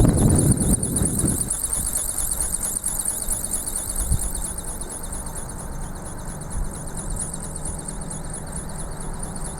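Wind buffeting the microphone for about the first second and a half, then easing off. Under it runs a steady, high-pitched shrill sound with a fast pulsing flutter.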